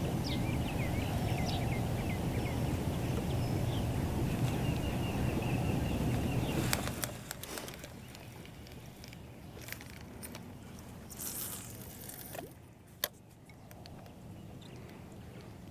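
Open-air boat ambience: a steady low rumble with a few short bird chirps over it, then a drop to a quieter background with scattered light clicks.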